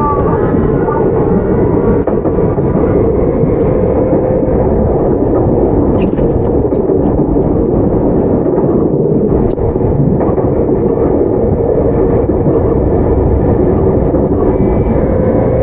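Running sound inside a Tokyu 9020-series electric commuter car with a Mitsubishi inverter drive, travelling between stations: a steady rumble of wheels on rail under a motor tone. The tone rises slightly near the end.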